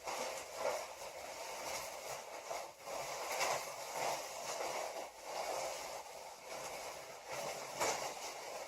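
Continuous rustling and crinkling of packing material as planters are unpacked from their box, swelling and easing with the handling.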